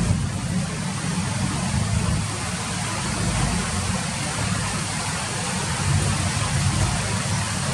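Steady rain falling, an even hiss, with a low rumble underneath that swells and fades every second or two.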